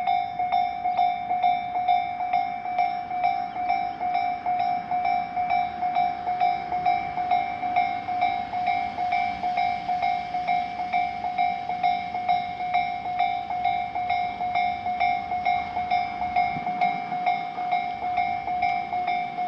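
Japanese railroad crossing warning bell ringing in a steady, even rhythm of about two strikes a second: the crossing's alarm sounding while the barriers are down for a train.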